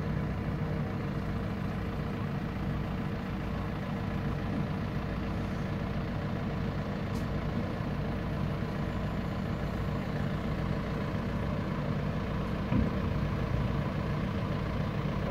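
Steady low rumble of heavy diesel engines: the small ferry's engine as it comes in to the slipway, and the tractor idling on its deck. A single knock about 13 seconds in.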